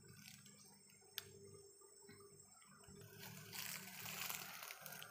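Faint rustling of leaves and undergrowth, swelling for a second or two past the middle, with one small click about a second in.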